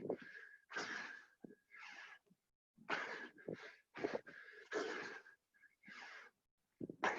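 Heavy, laboured breathing and gasping from people exercising hard through a set of burpees, a loud, rough breath roughly once a second.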